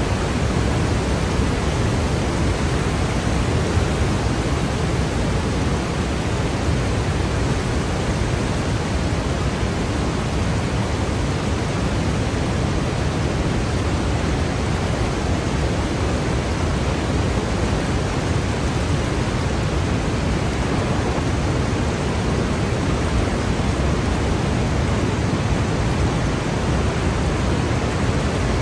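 Steady, loud rush of the Vøringsfossen waterfall, with a deep rumble of falling water and no breaks or changes.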